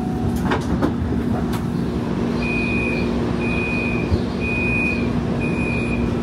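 Interior of a Siemens S70 light-rail car with a steady electrical hum and a few clicks early on. About two and a half seconds in, a series of high electronic warning beeps starts, about one a second, each lasting about half a second.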